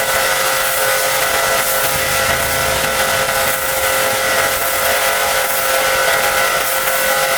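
High-pressure washer running steadily: a constant motor-pump whine with the hiss of the water spray.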